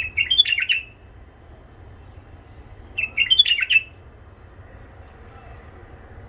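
White-eared bulbul singing two short, quick song phrases about three seconds apart, each a rapid run of notes.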